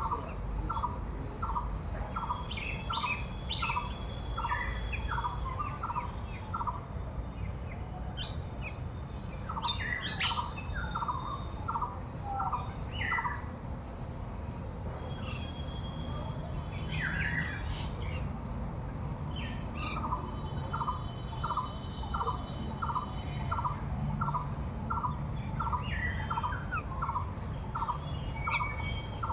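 Birds calling: one repeats a short note about three times a second in long runs, stopping for a few seconds in the middle, while others chirp higher up. A steady high hum runs underneath throughout.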